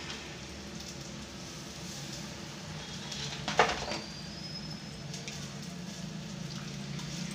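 Onion-tomato masala sizzling quietly in an aluminium pot over a gas burner, with a steady hum beneath. A single sharp clatter about halfway through.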